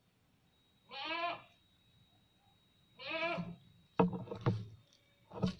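A goat bleating twice, each call about half a second long with a quavering wobble in its pitch. A few short knocks follow near the end.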